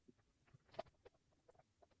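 Near silence with a few faint, short clicks, the clearest a little before halfway through.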